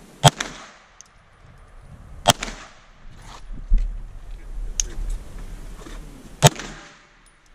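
Handgun shots fired one at a time: three loud single shots about two seconds apart, with a fainter sharp crack between the second and third.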